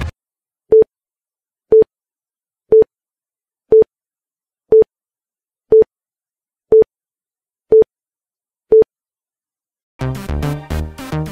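Countdown timer beeping: nine short, identical mid-pitched beeps, one a second, with silence between them. Electronic dance music starts again about ten seconds in.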